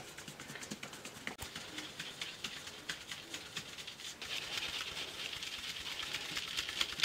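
Flour being sifted through a round metal-rimmed sieve into an aluminium bowl: a quick run of light taps and rattles as the sieve is shaken, with a soft hiss of flour falling through the mesh that grows stronger about halfway through.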